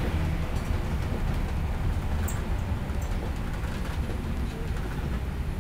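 Steady low rumble of a moving RV heard from inside the cabin: engine and tyre road noise while driving, with faint rattles.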